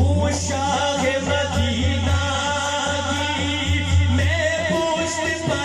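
A man singing a naat through a sound system, with long, wavering held notes, over a steady low hum.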